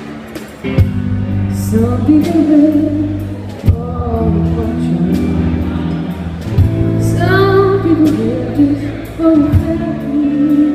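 Live band performance: a female vocalist sings a slow melody over guitar and electric bass, with a few drum hits. The voice comes in about two seconds in.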